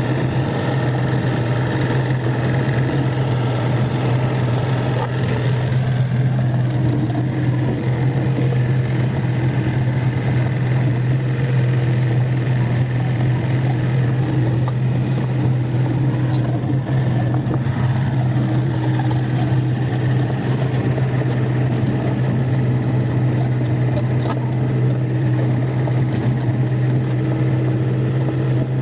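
Kobelco SK 50 P mini excavator's diesel engine running steadily, a constant low drone with no breaks.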